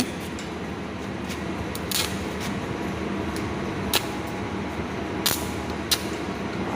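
Electric arc welding: a steady hiss over a low electrical hum, with a few sharp pops and crackles from the arc.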